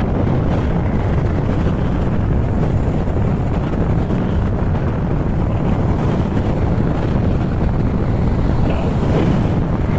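Steady wind rumble on the microphone of a camera carried on a moving Honda ADV160 scooter, with the scooter's engine and road noise running beneath it.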